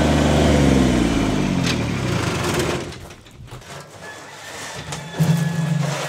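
Small compact tractor's engine running, its pitch falling as it slows, then dropping away about three seconds in. A steady engine hum comes back near the end.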